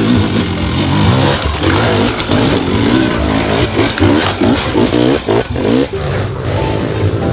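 Air-cooled pit bike engines revving up and down in quick, repeated throttle blips, the pitch rising and falling about twice a second for a few seconds in the middle.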